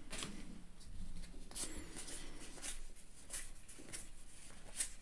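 Baseball trading cards being flipped through by hand, each card sliding off the stack with a faint short rasp, about one a second.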